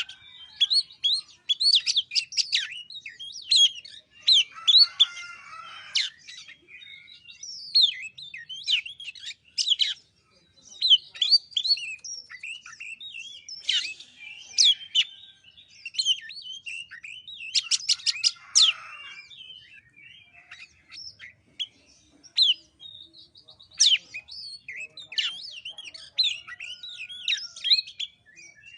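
Oriental magpie-robin singing a fast, varied song of sweeping whistles, chirps and quick rattling trills in near-continuous phrases.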